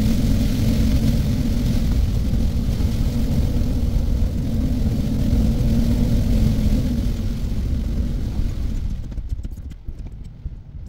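Road and tyre noise heard inside a car driving on a rain-soaked road: a steady drone with a hum and a hiss of wet spray. About nine seconds in it grows quieter and the hiss drops away, leaving faint scattered ticks as the car slows into traffic.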